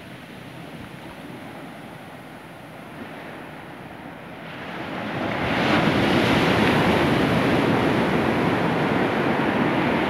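Ocean surf breaking on a sandy beach: a low steady wash, then about halfway through a wave breaks and a loud rush of foaming water follows.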